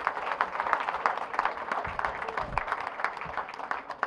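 Audience applauding, many hands clapping, thinning out near the end.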